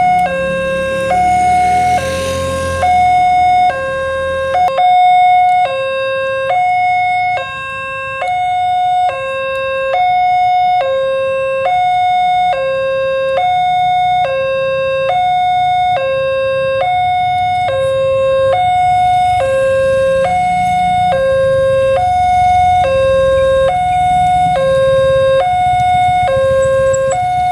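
Railway level-crossing warning siren sounding a steady two-tone hi-lo alternation, each tone held about half a second. A low rumble sits under it in the first few seconds and again from about two-thirds of the way through.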